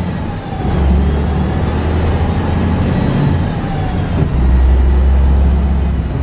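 Volvo THD100DA 9.6-litre six-cylinder diesel of a 1977 Volvo B58 bus under way, heard from inside the passenger cabin. The engine note dips briefly about half a second in and again around four seconds in, then comes back stronger each time.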